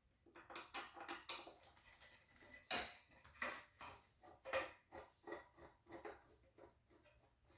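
Small metal parts and tools clicking and clinking in irregular light knocks as a commercial panic bar's touch-bar end covers are worked off.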